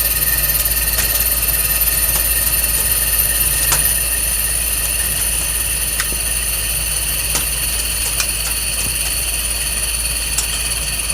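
CNC lathe running while cutting stainless steel: a steady high-pitched whine over a low hum, with sharp ticks every second or two.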